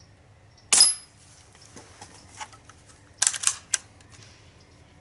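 Crosman 760 Pumpmaster pump-up air rifle firing a single pellet shot, a sharp crack with a brief high ring. About two and a half seconds later the bolt is pulled back and the magazine pushed over one click, a quick run of sharp metallic clicks that reloads the next pellet.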